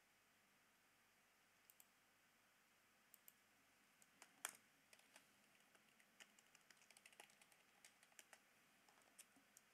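Faint scattered clicks of a computer keyboard and mouse over near-silent room tone, a few at first, then a busier run of clicks from about four seconds in.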